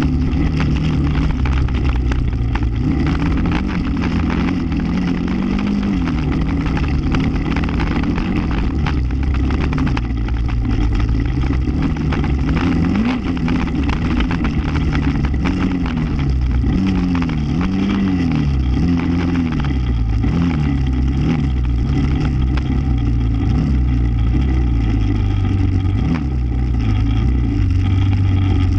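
ATV engine running while under way, its pitch rising and falling again and again as the throttle is opened and eased, most often in the middle stretch, over a steady rush of ride and wind noise.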